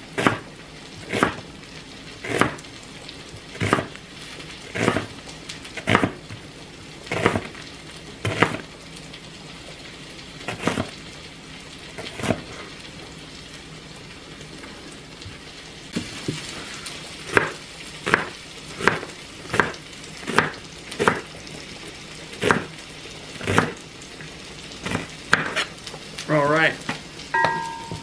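Knife slicing an onion on a plastic cutting board, each stroke a sharp knock on the board, about one a second at first, then faster after a pause of a few seconds midway. Under it, the steady sizzle of zucchini and carrots frying in olive oil in a wok.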